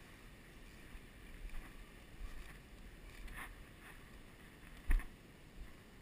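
Low rumble of wind on the microphone with faint running-water hiss, broken by a few soft clicks and one sharp knock about five seconds in.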